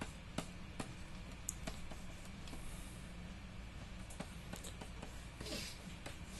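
Faint, scattered clicks and taps of a stylus on a drawing tablet, with a brief scratch of a pen stroke about five and a half seconds in, over a low steady room hum.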